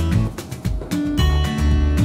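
Background music with a strummed acoustic guitar, dipping briefly about half a second in.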